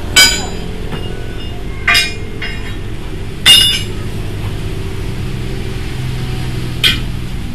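Sharp metallic clanks from a steel truck wheel rim and tire tools, four strikes that ring briefly, as a truck tire is worked off its rim. A steady low hum runs underneath.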